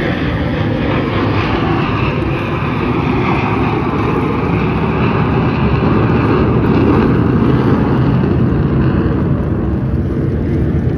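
Jet engine noise from a formation of display jets flying over the water: a steady noise that grows a little louder around the middle.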